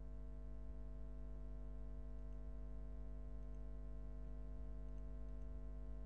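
Steady electrical hum with many even overtones and no speech, with a few faint ticks in the middle.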